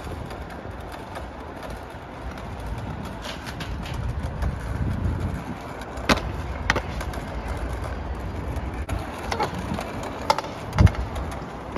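Stunt scooter's wheels rolling over paving tiles, with sharp clacks of the deck and wheels hitting the ground about six seconds in and twice near the end. The last and loudest comes as the scooter drops to the tiles after a bail, a knock the rider fears has damaged a wheel.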